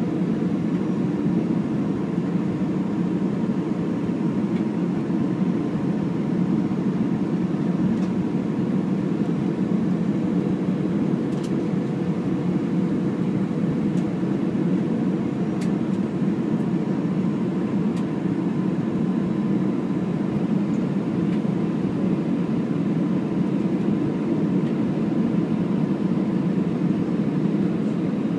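Airbus A320 cabin noise on final approach, heard from a seat beside the wing: a steady rush of airflow and engine hum. A faint whine fades about halfway through.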